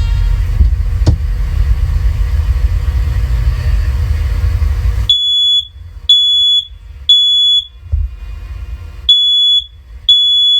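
A loud low rumble fills the first five seconds. Then a First Alert OneLink third-generation smoke alarm sounds its test alarm: high-pitched beeps, each about half a second long, about one a second in the temporal-three pattern. Three beeps, a pause, then two more. The high pitch of the beep marks this as a third-generation unit.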